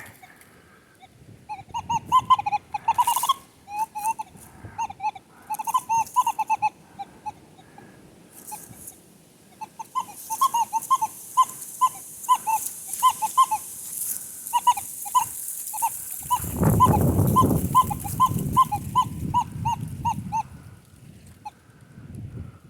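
Metal detector sounding its target tone: clusters of short, repeated beeps of about the same pitch as the coil is swept back and forth over a buried metal target. A gust of wind rumbles on the microphone about two-thirds of the way through.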